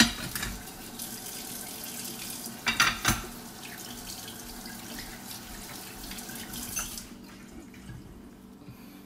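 Kitchen tap running into a sink as a steady hiss of water, shut off about seven seconds in, with a couple of sharp knocks near three seconds.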